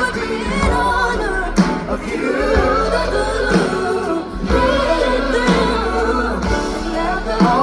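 Rock band playing with singing, drums hitting through it.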